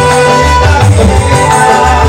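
Loud dangdut music from an orkes Melayu band played over PA speakers, with a pulsing bass beat under sustained melody notes.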